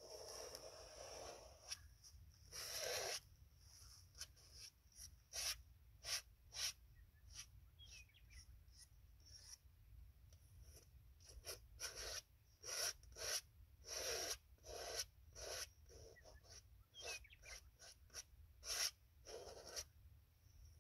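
Oil paint being worked onto a large canvas in many short, irregular scraping strokes, some coming in quick runs.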